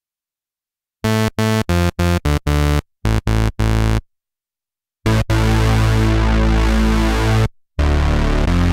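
Cherry Audio Octave Cat software synthesizer, an emulation of the 1976 Octave CAT duophonic synth, playing a bass preset. First a quick run of about ten short staccato notes, then after a pause long held deep bass notes.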